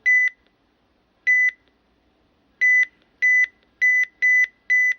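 Key-press beeps from a RadioShack 12-522 weather alert radio as its buttons are pressed: seven short, identical high beeps, slow at first and coming quicker in the second half as the buttons are pressed faster.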